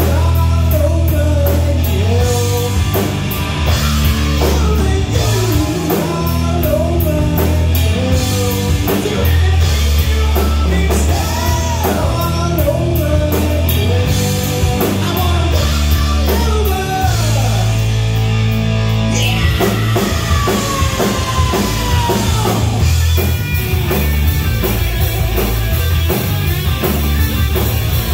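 Rock band playing live: electric guitar, electric bass and drum kit, with lead lines bending up and down over the first half and a long falling glide in pitch about two-thirds of the way in.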